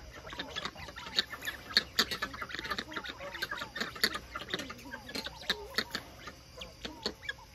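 Plumed guineafowl giving short soft calls, mixed with many quick sharp clicks as they peck and pull at grass through a wire fence.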